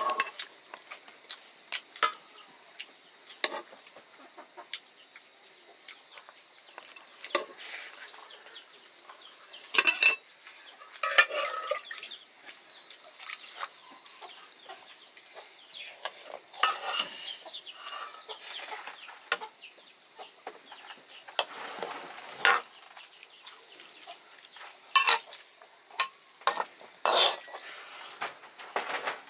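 Scattered clinks and scrapes of a serving spoon on stainless steel plates as rice, lentil soup and fiddlehead greens are dished out, with chickens clucking now and then.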